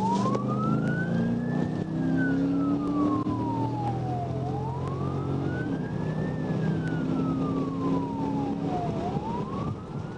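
Police car siren in slow wail mode: a tone that climbs for about two seconds, then falls for about three, repeating about every four and a half seconds. A steady low engine hum and road noise run underneath.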